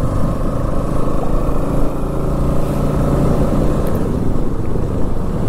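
Motorcycle engine running steadily under way, with continuous wind and road noise on the rider's microphone.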